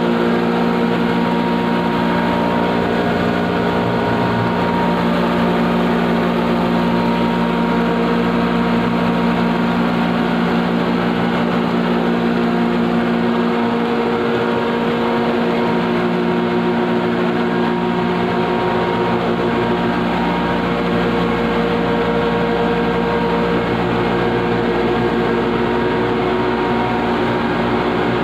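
Red chilli powder grinding plant running: electric motors and a belt-driven grinder make a constant loud drone with several steady hum tones under a rushing noise.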